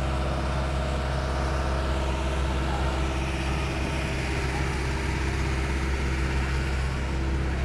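Large police water-cannon truck's diesel engine running steadily close by, a constant low rumble with a steady hum above it.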